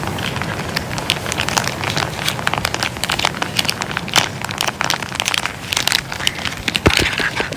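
Close-miked ASMR crinkling: a dense run of irregular crackles over a steady low rumble, with one sharper click about seven seconds in.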